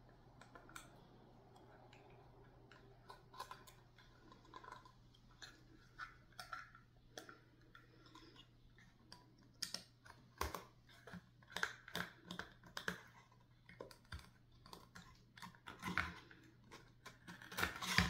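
Irregular light clicks, taps and rustles of hands handling small wooden birdhouse pieces and scrapbook paper, sparse at first and busier in the second half, over a low steady hum.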